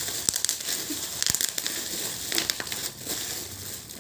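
Plastic bubble wrap twisted and squeezed by hand: steady crinkling of the plastic with scattered sharp pops as bubbles burst.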